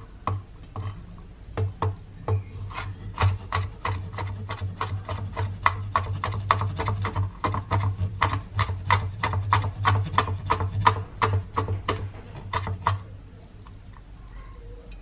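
Knife chopping garlic on a cutting board: quick, regular knocks of the blade striking the board, about three a second, stopping near the end.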